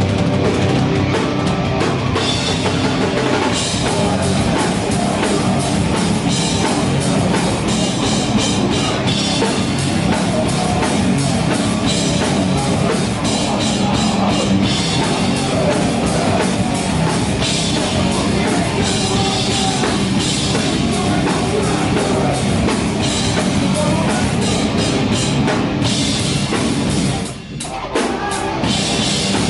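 Live rock band playing loud: electric guitars over a drum kit with crashing cymbals, close to the drums. The music drops out briefly near the end and then comes back in.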